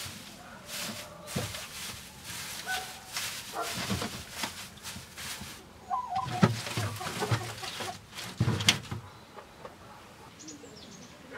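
Chickens clucking amid a run of knocks and clatters, with two heavier thuds about six and a half and eight and a half seconds in.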